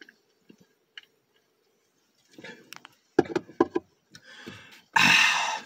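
A man drinking from a soda can: faint sips and swallows, then about three seconds in a quick run of four short, sharp throat sounds, and a loud, breathy exhale in the last second.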